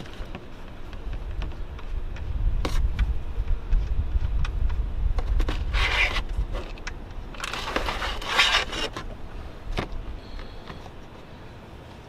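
Oil-pan drain plug being turned out by hand, with a few small clicks, then engine oil pouring into a plastic drain pan, with bursts of splashing hiss over a low rumble.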